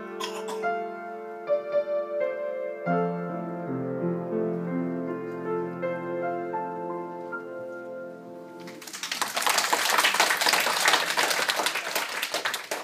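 A piano piece played by a child, its last notes and a held final chord ringing out, then an audience applauding from about nine seconds in, louder than the piano.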